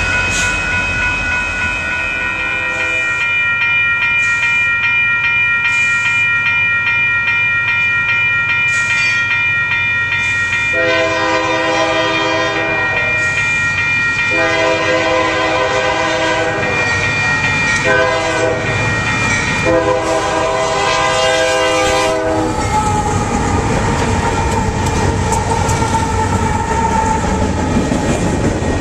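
Railroad crossing bells ringing, then a Union Pacific diesel locomotive's horn sounding the grade-crossing signal: long, long, short, long. After that, freight cars roll through the crossing with a rumble and a clickety-clack of wheels over rail joints.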